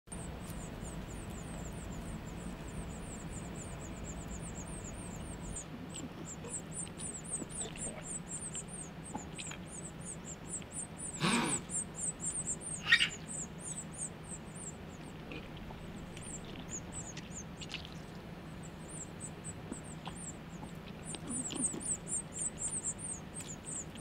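Nestling songbirds begging: rapid, high-pitched cheeping, many calls a second, with short pauses, over a steady low hum. A brief sharp knock about halfway through and a short squeak about two seconds later stand out as the loudest sounds.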